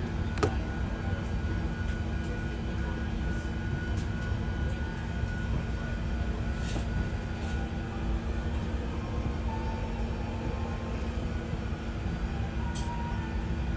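Steady low hum and rush of air inside an Airbus A380's cabin, with a thin high whine running through it and a few faint clicks.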